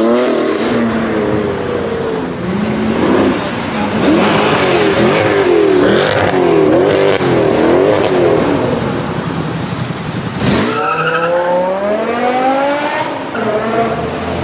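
A high-performance car engine is revved repeatedly, its pitch climbing and dropping about once a second. About ten seconds in there is a sharp crack, and then the engine pulls away with the pitch rising.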